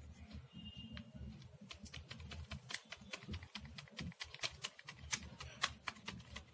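Faint crinkling and clicking of a plastic baking-powder packet being handled while a plastic measuring spoon scoops powder out of it, many small irregular clicks over a low hum.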